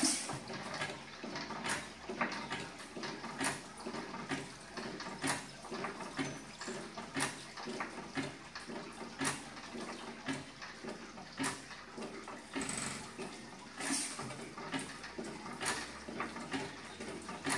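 1912 IHC Victor 4 hp screen-cooled, single-cylinder hit-and-miss engine running, firing with a sharp bang about every two seconds and coasting between firings. Its valve gear and running parts keep up a steady rhythmic clatter in between.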